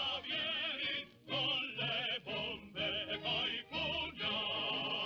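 Operatic singing with heavy vibrato, in short phrases separated by brief gaps.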